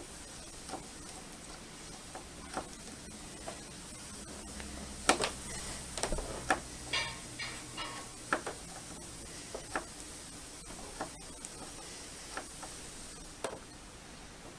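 Phillips screwdriver turning a screw into a TV's stand base: scattered small clicks and scrapes, busiest about five to eight seconds in.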